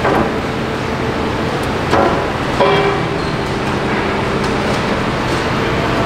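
Hyundai HX480L tracked excavator running steadily while it moves, with a sharp clank at the start and another about two seconds in, followed by a short higher-pitched tone.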